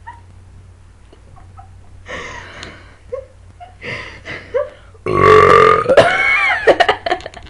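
A teenage girl belching: two short, quieter burps, then a long, loud burp of nearly two seconds starting about five seconds in, with a wavering pitch.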